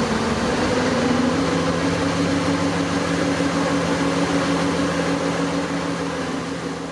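Slip form concrete paver running steadily: a constant machine hum with a steady noise over it.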